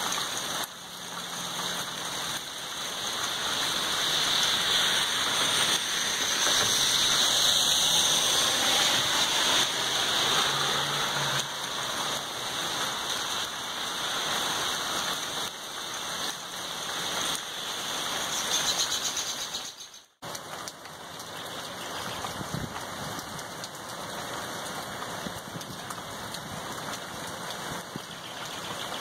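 Heavy rain falling steadily during a thunderstorm, a continuous hiss that grows louder over the first several seconds. It breaks off for an instant about two-thirds through and goes on a little lighter.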